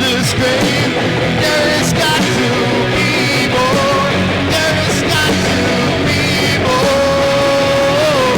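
Rock song playing, with electric guitar and a sung melody that holds a long wavering note near the end.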